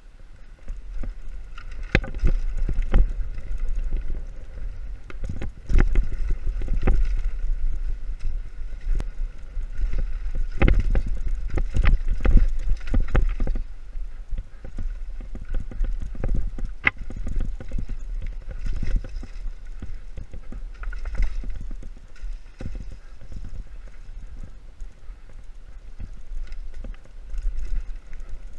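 Mountain bike rattling and clattering down a rough dirt trail, picked up through a handlebar-mounted camera: irregular knocks and jolts over a steady low rumble.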